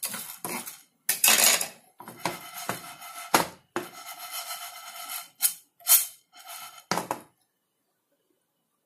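Wooden spatula stirring and scraping toor dal as it dry-roasts in a nonstick pan, the lentils rattling against the pan as it is shaken. A series of uneven scrapes and knocks that stops abruptly a little after seven seconds in.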